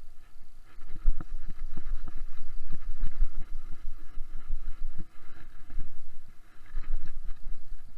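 Metal sand scoop digging into the sand and being lifted full, a run of irregular scrapes and knocks over a low water rumble, muffled by the camera's waterproof housing.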